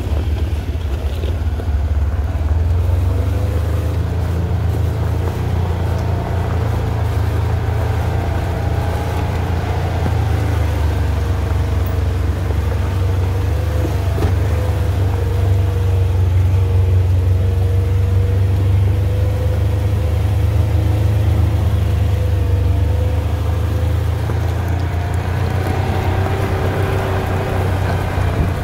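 Off-road vehicle engine running steadily at low trail speed, a constant low drone with small rises and falls in pitch.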